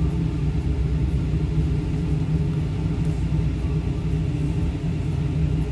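Steady low diesel engine rumble heard from inside a truck cab, even and unbroken.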